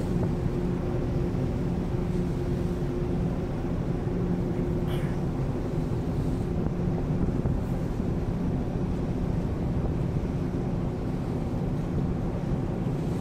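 Steady low hum of a large car ferry's engines and shipboard machinery, heard from the open deck, with wind noise on the microphone.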